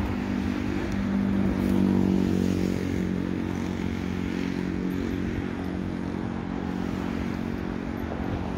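An engine running steadily off-screen, a low drone at an even pitch that swells about two seconds in and then holds.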